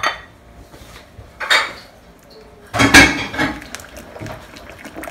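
Metal spoon stirring a thick cream sauce in a large metal pan, scraping and knocking against the pan. There is a louder knock about one and a half seconds in and the loudest clank about three seconds in.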